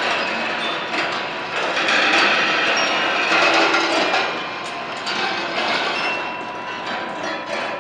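Rolling ball machine running: balls clatter and click along its metal wire tracks and through its mechanisms in a dense, continuous rattle, with short ringing pings now and then.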